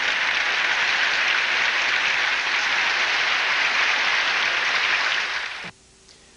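Audience applauding steadily after a song. The applause cuts off abruptly near the end, leaving only a faint hum.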